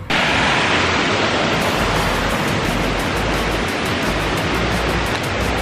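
Loud, steady rushing noise that starts suddenly and holds even throughout, with an uneven low rumble underneath.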